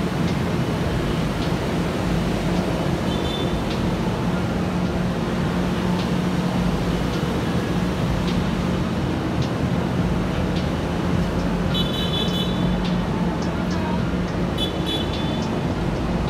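Steady urban traffic noise with a constant low engine hum. Brief high chirps come twice, about twelve seconds in and again near the end.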